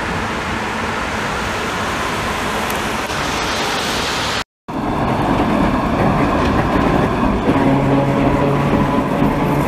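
Wet-road city traffic noise. After a sudden cut about four and a half seconds in, the FVV prototype tram no. 3720 runs past close by on rails with a steady hum.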